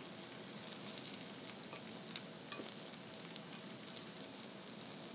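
Corn tortillas topped with shredded chicken frying on a hot flattop griddle: a steady, quiet sizzle, with a few light clicks.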